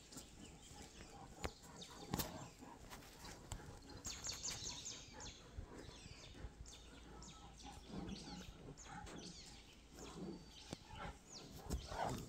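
Young giant pandas play-fighting: scuffling and rustling in dry leaves and dirt, with a few short, low animal vocal sounds in the second half.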